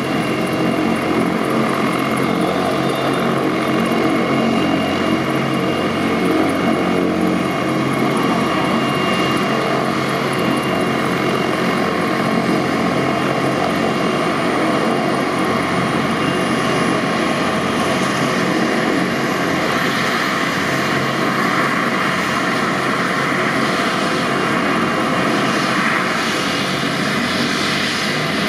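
Agusta A109 Grand twin-turbine helicopter running on the ground with its rotors turning: a steady turbine whine over the rotor and engine noise, unchanging in level.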